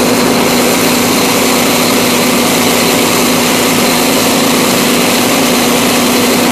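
An engine running steadily at a constant speed, a loud, even drone with a steady hum that does not change.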